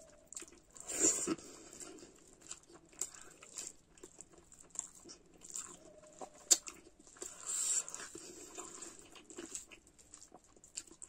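Close-up eating sounds: fingers squishing and mixing rice and curry on a steel plate, with chewing and lip-smacking, heard as scattered clicks and short wet bursts.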